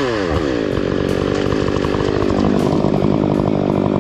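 Stihl MS 881 two-stroke chainsaw running. Its pitch drops over the first half second, then holds steady.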